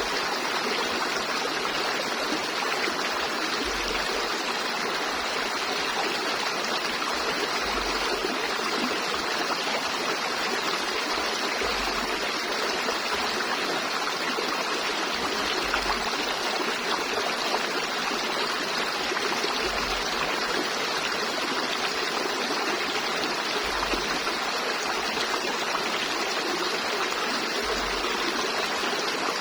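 River water flowing in a steady, even rush with no breaks.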